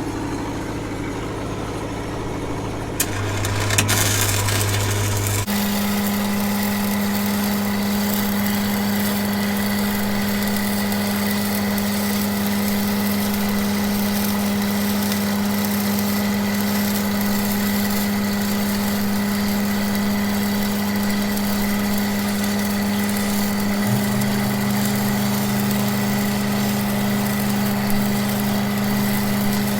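Engine-driven welding machine running. About five seconds in, its engine steps up to a higher steady pitch as the arc is struck, and a steady crackling hiss of stick welding begins while a fill pass is run on a threadolet.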